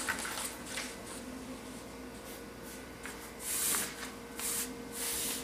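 Large sheets of pattern paper rustling and sliding under hands as a folded bodice draft is pressed and handled, in a few soft bursts: one a little past the middle and more near the end.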